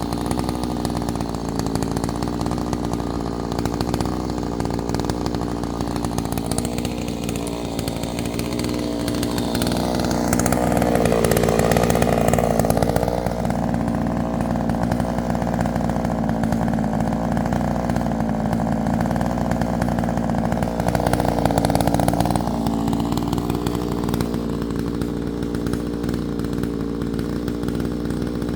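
Chainsaw running steadily while cutting firewood. It grows louder twice, about ten seconds in and again about twenty seconds in, and its pitch drops as the chain bites into the wood.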